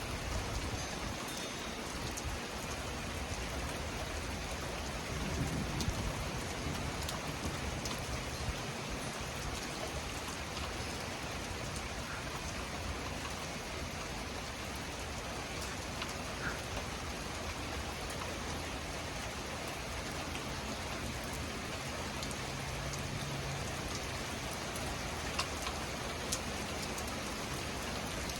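Steady thunderstorm rain falling, an even hiss with scattered drop taps.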